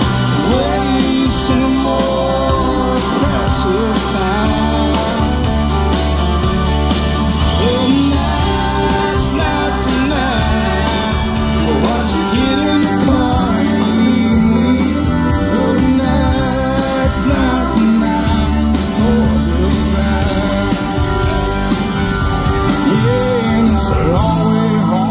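Live country band playing over a PA: a fiddle carries the lead line over strummed acoustic guitar, bass and drums.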